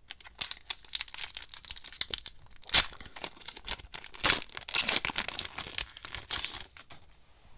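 Foil wrapper of a Magic: The Gathering booster pack crinkling and being torn open by hand: a dense run of crackles, loudest about three and four seconds in, dying away near the end.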